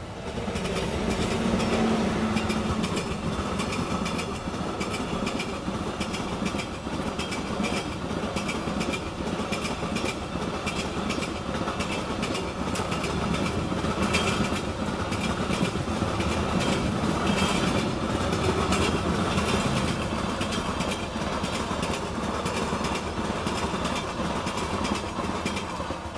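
Passenger train passing at speed, its wheels clattering on the rails: a steady rumble with many fast clicks.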